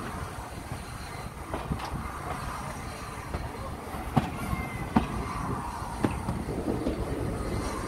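A steam-hauled train rolling past: a steady rumble of wheels on rails, with a few sharp, irregular clicks as the wheels cross rail joints, growing slightly louder towards the end.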